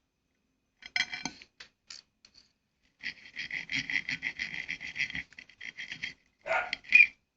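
Rapid scratching and pattering for about three seconds, then a dog barking twice near the end.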